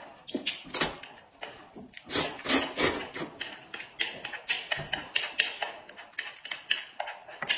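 People eating noodles close to the microphone: a run of short, irregular slurps, smacks and chewing sounds, a few louder slurps about two to three seconds in.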